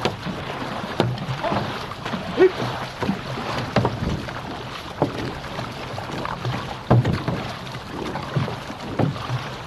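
Six-person outrigger canoe (OC6) under paddle: blades splashing into the water on each stroke, roughly once a second, over a steady rush of water along the hull.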